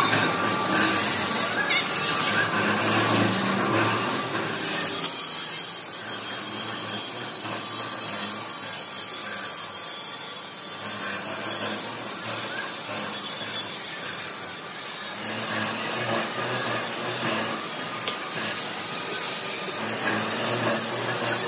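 Steady machine-shop din from machinery running nearby: a continuous rasping, grinding noise with a faint high whine.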